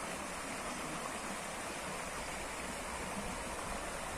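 A small creek running over stones: a steady rushing of water.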